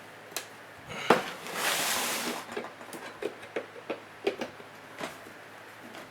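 A sealed steel surplus ammunition can being worked open by hand: a sharp metallic click about a second in, a rasping scrape lasting about a second, then a run of short clicks and knocks.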